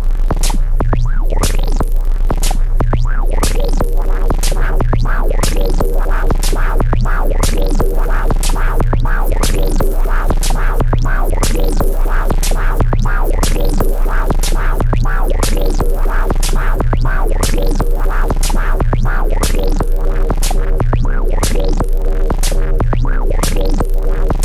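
Electronic track from a Eurorack modular synthesizer, with kick and snare from a Korg Volca Drum: a repeating synth sequence over a steady drum-machine beat, laced with quick falling high-pitched sweeps and a constant low drone.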